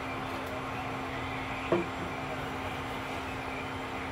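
Induction cooktop's cooling fan running: a steady rushing noise with a low, constant hum. A single brief knock comes a little before halfway.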